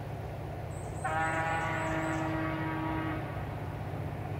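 Horn of an approaching GM-engined CFR class 65 diesel locomotive, sounding one steady blast of about two seconds with several notes together about a second in, over a steady low rumble.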